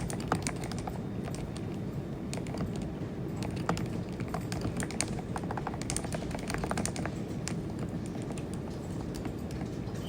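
Typing on a Groovestone GV10M-8K mechanical keyboard fitted with hand-lubed, low-noise linear switches: quick, irregular key clicks, thinning out over the last few seconds.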